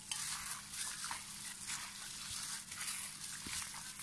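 A plastic-gloved hand squishing raw chicken pieces in spice paste in a plastic bowl: an irregular run of wet crinkling and rustling, with a faint steady hum underneath.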